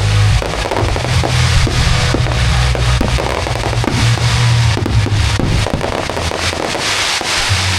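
Fireworks bursting and crackling in quick succession, over music played through loudspeakers with a steady low bass.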